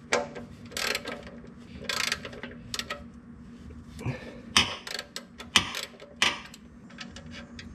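Hand ratchet clicking in short runs of ticks as a loosened oil drain plug is backed out of the oil pan, with a quicker run of clicks near the end.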